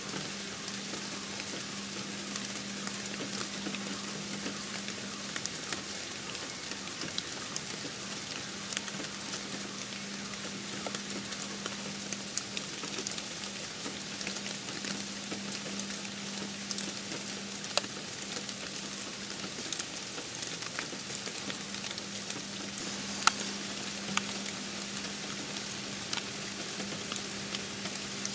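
Fire burning: a steady hiss with many small crackles and pops, and two sharper pops in the later part.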